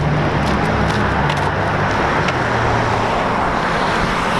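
Steady noise of a car being driven, with road rumble and a low engine hum that changes pitch a few times.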